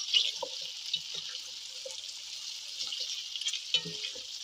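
Bone-in lamb and onions sizzling in a pot as they brown, stirred with a wooden spatula that knocks and scrapes against the meat and the pot now and then.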